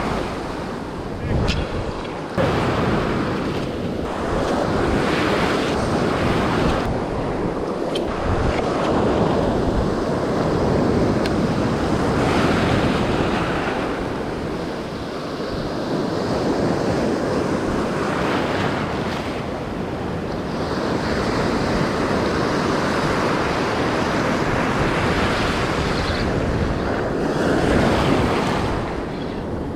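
Surf breaking on a beach, a steady rush that swells and eases every several seconds, with wind buffeting the microphone.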